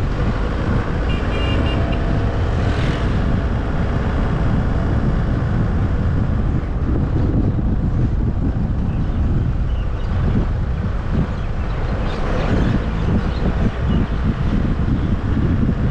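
Steady rumble of a car driving along a paved road, mostly tyre and wind noise, with brief louder swells about three seconds in and again around twelve seconds.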